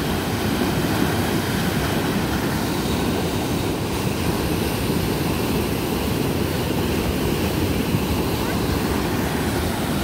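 Floodwater rushing in a steady, deep roar, with no breaks or separate splashes.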